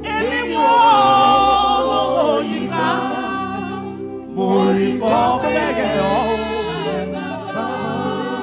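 Vocal group singing a gospel worship song a cappella, several voices in harmony holding chords and moving in phrases, with short breaths between lines.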